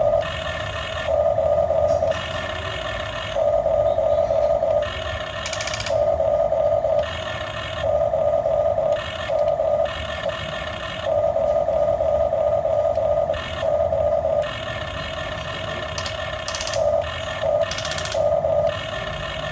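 Small electric gear motors of a Top Race TR-211 RC toy backhoe loader whining in spurts of about a second, starting and stopping over and over.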